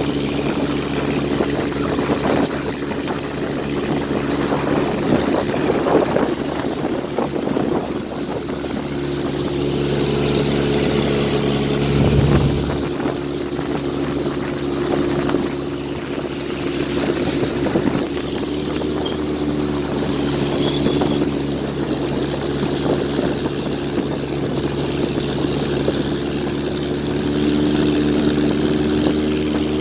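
A river boat's engine running steadily under way, a constant drone with rushing water and wind noise over it. Its pitch shifts slightly about ten seconds in and again near the end.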